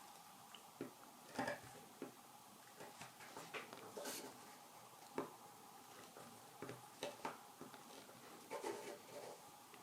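Tip of a carving knife cutting fine lines into a wild cherry spoon handle: quiet, irregular scratches and small clicks as the blade scores the wood, over a faint steady hum.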